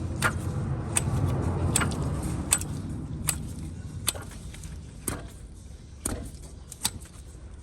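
Chevrolet S10 engine running with a growling, scraping noise from the timing-belt-driven water pump, the sign of a failing water pump bearing. Sharp ticks come about once every 0.8 seconds over the steady hum.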